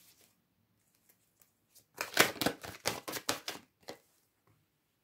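Tarot cards being shuffled by hand: a quick run of papery card flicks that starts about two seconds in and lasts about two seconds.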